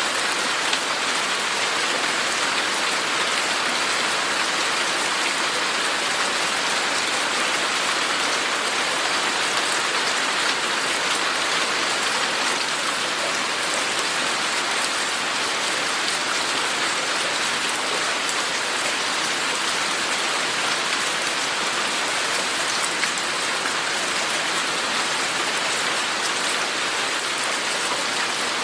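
Steady rain falling and pattering on a surface, an even hiss of many drops that holds at the same intensity throughout.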